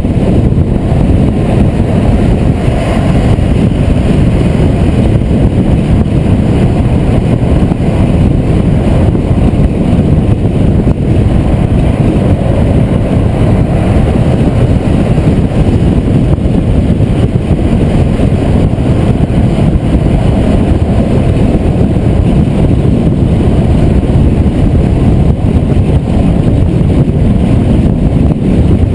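A car driving at highway speed, with a steady low rumble of wind and road noise that holds throughout.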